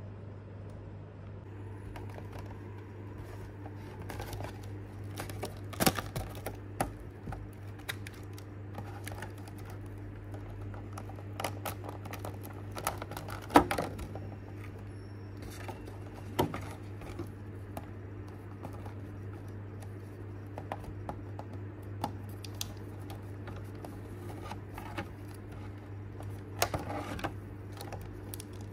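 Clear plastic packaging tray and booster packs being handled: scattered crinkles and sharp clicks, the loudest about 6 and 14 seconds in, over a steady low hum.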